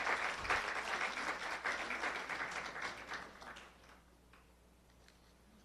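Audience applauding, the clapping thinning out and dying away about three and a half seconds in.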